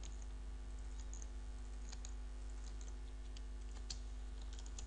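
Computer keyboard typing, with irregular, sparse keystrokes over a steady low hum.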